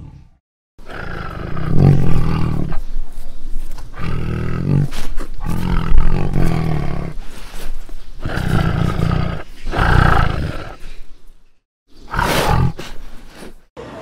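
Tiger roaring repeatedly: a run of deep roars in close succession, then one more after a short pause near the end.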